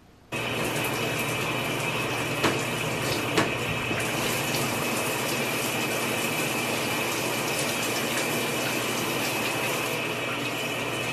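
Shower running behind the curtain: a steady hiss of falling water that starts abruptly just after the start, with two faint clicks a few seconds in.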